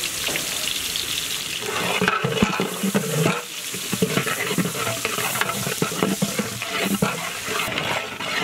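Sliced onions frying in bubbling oil in a large metal pot, sizzling steadily, while a long metal spatula stirs them, scraping and clacking against the pot from about two seconds in.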